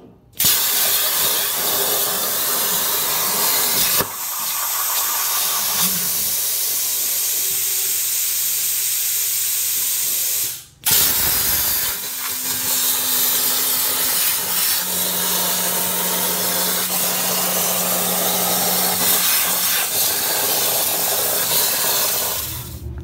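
Hypertherm Powermax85 plasma cutter on a CNC table cutting thin sheet steel: the plasma arc hisses loudly and steadily. It starts about half a second in, stops for a moment about eleven seconds in and starts again, then cuts off just before the end.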